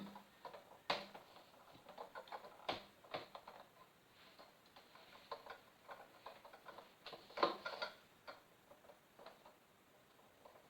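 Scattered clicks and knocks of parts being handled as a ring light is fitted onto its light stand. The loudest come about a second in, near three seconds, and about seven and a half seconds in.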